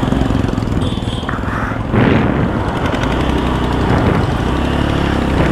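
Motorcycle engine idling with a steady low putter, with road traffic passing and a louder swell of passing-vehicle noise about two seconds in.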